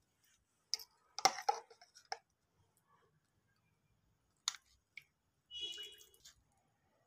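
Metal spoon scraping and tapping against a plastic tea strainer as blended cucumber pulp is pressed through it to strain out the juice: scattered faint clicks and short scrapes, a cluster in the first two seconds and a few more later.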